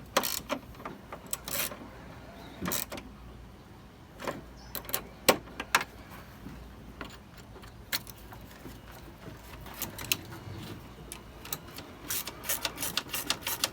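Hand tools clicking and knocking on the headlight assembly bolts as they are tightened, in scattered single clicks and taps, with a quick run of rapid clicks near the end.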